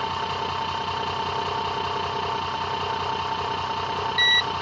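Home-built charging rig of a brushless DC motor and microwave oven transformers running with a steady electrical hum. Near the end an electronic tester starts beeping in quick short beeps as it cuts out.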